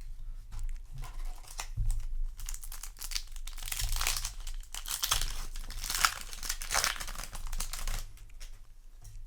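Foil wrapper of a Yu-Gi-Oh! booster pack crinkling and tearing as it is opened, in a dense run of crackles and snaps lasting several seconds.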